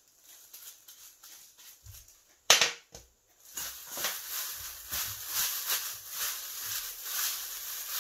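A sharp clack about two and a half seconds in as a small ceramic dish is set down on a glass tabletop, then a steady crisp crackling rustle of cut dried laver (gim) being tossed and squeezed by plastic-gloved hands in a stainless steel bowl to coat it in oil.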